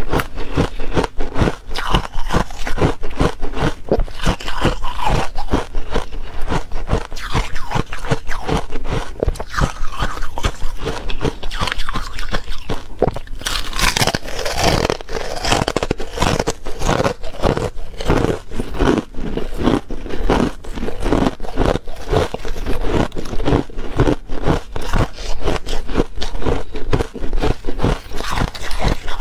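A person biting and chewing buckwheat ice with rapid, continuous crunching.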